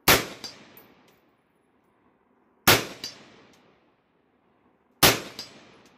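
Three AR-15 rifle shots in 5.56/.223, about two and a half seconds apart. Each is followed a fraction of a second later by a fainter ring of the bullet striking a steel gong 100 yards downrange.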